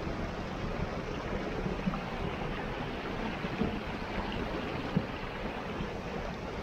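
Shallow stream rushing over rocks, a steady water noise with a few short pops; superheated spring water seeping from the bank flash-boils as it meets the cold stream.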